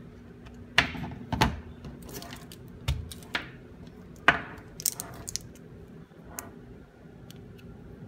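Hands handling a plastic drone battery and its charging adapter on a table: a string of sharp knocks and clicks, the loudest about a second in and around four seconds in, over a faint steady hum.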